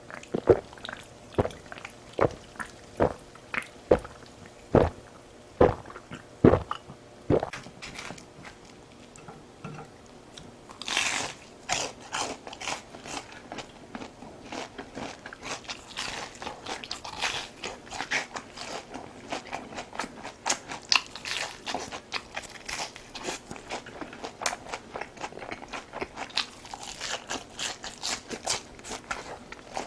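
Close-miked chewing and crunching of food in a person's mouth: a run of sharp, evenly spaced chews a little under a second apart for the first seven seconds, then, after a louder crunch about eleven seconds in, quick dense crackly chewing.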